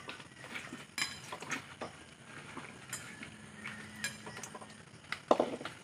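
Small fish and prawns shaken out of a net fish trap into a stainless steel bowl: light scattered taps and clinks on the metal, with a louder knock near the end.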